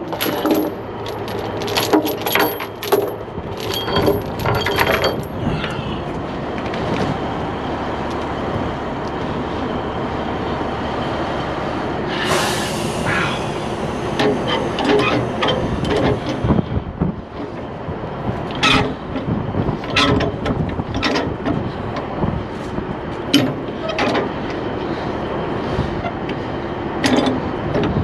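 Steel tie-down chain clanking, then a burst of air hiss, then the repeated sharp clicks of a ratchet chain binder being worked loose. A truck engine idles steadily underneath.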